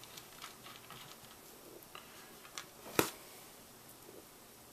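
Small 4-40 machine screws clicking faintly as they are picked out of a hardware pile and handled, with one sharper click about three seconds in.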